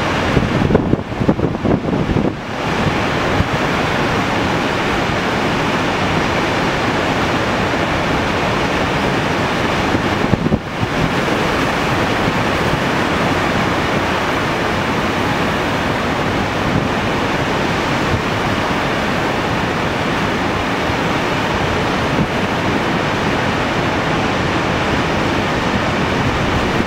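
Steady rush of the Mohawk River pouring over a dam crest and churning white below it, running high with the spring ice break-up. Wind buffets the microphone now and then, most plainly about a second in and again around ten seconds in.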